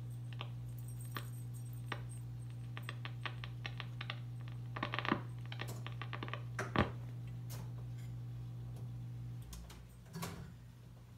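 Wurlitzer 850 Peacock jukebox idling with no record playing: a steady low electrical hum under a run of irregular mechanical clicks and ticks. Near the end the hum drops away, and a few more clicks follow.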